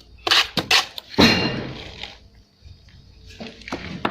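A series of sharp knocks and clatters: three quick ones in the first second, a louder one just after that which trails off, and a few fainter knocks near the end.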